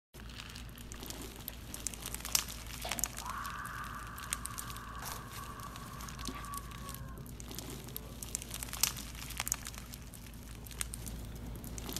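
Bead-filled slime being squeezed and stretched in the hands, giving many small crackling clicks and pops. A faint held tone sounds from about three to seven seconds in.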